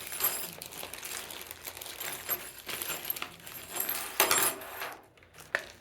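Small metal hardware (washers, wing nuts, a spring and a threaded rod) clinking and jangling as it is tipped out of its bag. The loudest clatter comes about four seconds in, and it goes quiet near the end.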